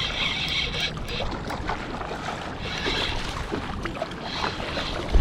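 Strong wind rushing and rumbling over the microphone, with a few small clicks.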